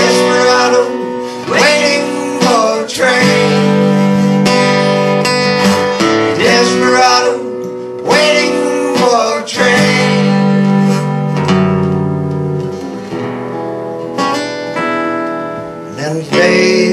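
Acoustic guitar strummed, with a man's voice singing over it.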